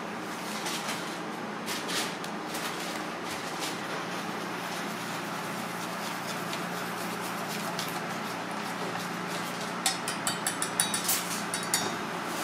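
Wire whisk beating tempura batter in a stainless steel bowl, over a steady kitchen hum; near the end, a quick run of about a dozen sharp metallic clicks as the whisk knocks against the bowl.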